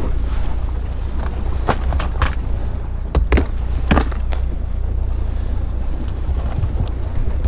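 Hard plastic tackle boxes knocking and clattering a few times as they are handled in and lifted out of a boat's deck storage hatch, over a steady low rumble of wind on the microphone.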